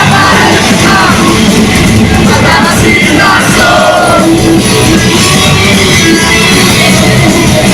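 Rock band playing live, loud, with a singer's voice over the band.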